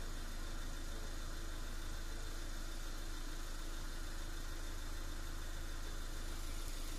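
Engine idling steadily: a constant low hum with a light hiss over it, unchanging throughout.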